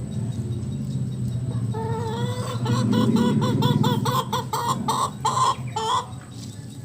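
A Bangkok gamecock clucking in a rapid run of short repeated notes, about five a second. The notes grow louder and stop about six seconds in, after a low steady hum at the start.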